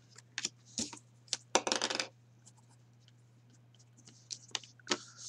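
Small handling noises at a desk: a handful of sharp clicks and a short scraping rustle about a second and a half in, with two more clicks near the end, over a steady low electrical hum.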